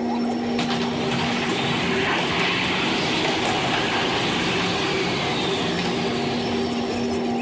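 CTA Red Line subway train running through the tunnel: a steady rumble of wheels on rail, with a rushing hiss that swells from about a second and a half in and fades again by about five seconds. A steady hum is heard at the start and returns near the end.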